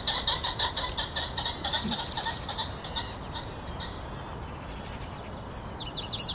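Common pheasant flushing: a rapid run of harsh cackling calls for about the first three seconds, then a few short high chirps near the end.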